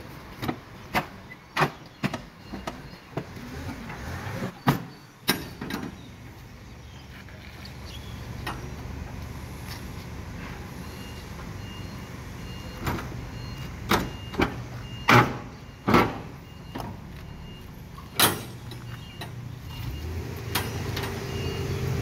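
Truck engine running under a series of sharp knocks and bangs, about a dozen of them, from container cargo being unloaded. The engine grows louder near the end.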